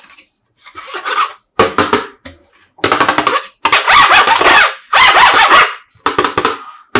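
Fingers rubbing and handling a stiff plastic tray, giving about six short crackling bursts, each under a second long, with brief gaps between.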